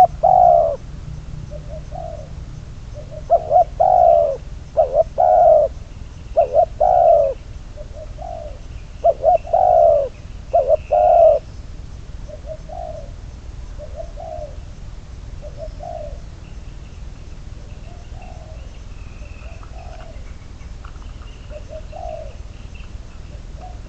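Spotted dove cooing: a run of loud, close coo phrases for about the first eleven seconds, then softer coos spaced a second or two apart.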